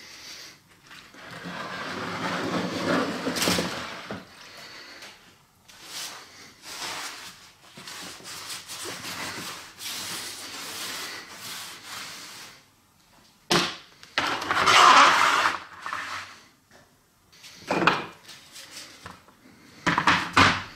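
Workbench handling sounds: water splashing as a wet metal sign is lifted out of a plastic tub of water, a sponge rubbing across a wooden bench top, then several knocks and scrapes as the sign and plastic trays are set down.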